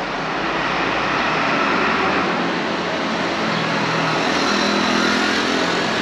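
Street traffic, with a motor vehicle engine running close by. The level is steady and a little louder after the first second.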